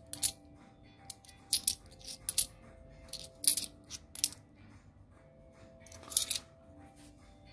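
Bimetallic 2-euro coins clinking against one another in the hand as they are slid off a small stack one by one: a dozen or so light metallic chinks at irregular intervals.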